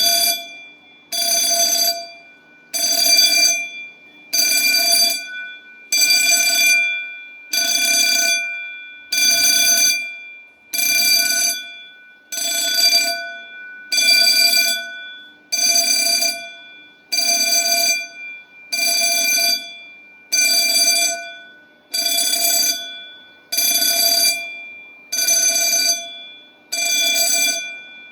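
Solenoid fire bell (Cooper Fulleon/Eaton) sounding a fire alarm in pulsed bursts: about a second of ringing, a short break, repeating roughly every 1.6 seconds, each burst fading a little toward its end.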